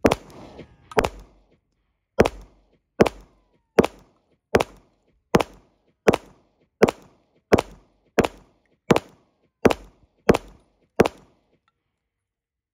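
Glock 49 9mm pistol firing standard ball ammunition: fifteen shots, two about a second apart, then thirteen in a steady rhythm of roughly one shot every three-quarters of a second, stopping about eleven seconds in.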